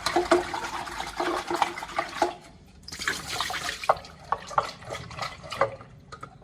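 Freshly boiled eggs being shaken around in a pot of cold water to cool them. The water sloshes, and the shells click against each other and the pot, with a short pause about two and a half seconds in.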